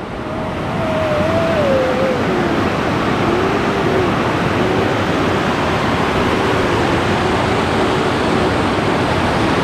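Waterfall's falling water rushing steadily; it grows louder over about the first second, then holds level. A faint tone wavers up and down in pitch above it for about eight seconds.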